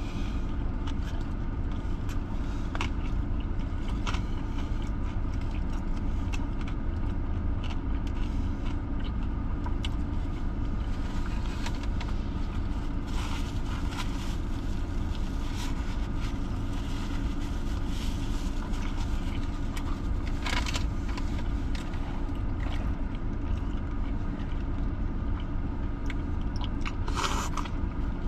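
Steady low hum of a car running, heard inside the cabin, with chewing and scattered small clicks and rustles as a burger is eaten and a paper napkin wiped across the mouth. Near the end comes a short slurp through a drinking straw.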